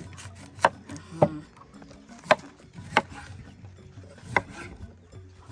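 A kitchen knife chopping food with five sharp strikes at uneven intervals.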